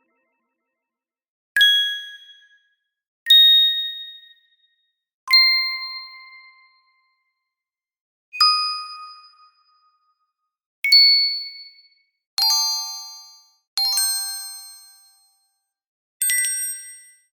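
Magic wand sound effects: eight separate bright chime dings, each starting sharply and ringing away over about a second, with silent gaps between. The later ones have many high tones sounding together, a glittering sparkle.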